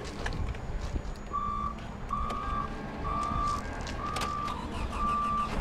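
Electronic warning beeper sounding one steady, high tone, five beeps about a second apart, over a low rumble.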